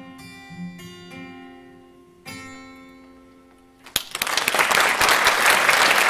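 Acoustic guitar picking the closing notes of a song, with a last strum at about two seconds that rings out and fades. Then audience applause breaks out about four seconds in, louder than the guitar, and carries on.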